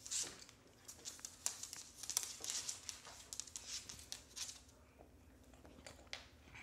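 Irregular scuffling, clicking and rustling as two playing dogs' claws and paws scrabble on a hardwood floor.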